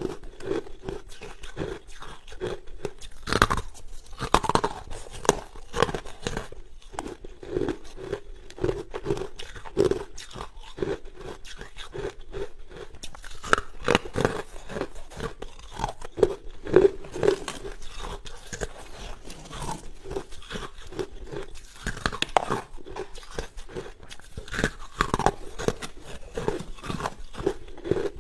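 A person biting and chewing hard carbonated ice, with rapid, continuous crunching close to the microphone.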